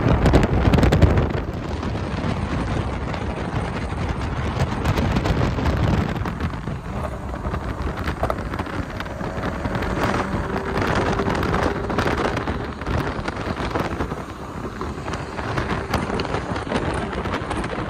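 Wind rushing and buffeting over a phone microphone held out of a moving car's window at road speed, over tyre and traffic noise from the cars alongside. It is loudest in the first second.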